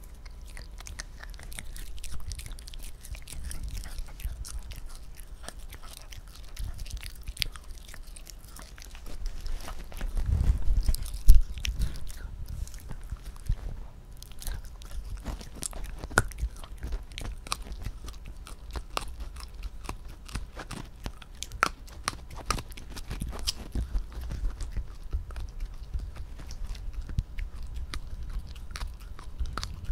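A small dog chewing and gnawing a dried pig ear chew close to the microphone: irregular crunching clicks, with a short run of louder low thumps about ten to twelve seconds in.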